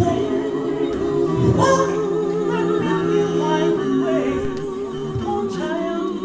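A cappella vocal group singing a gospel song in harmony, several voices holding long, sustained chords.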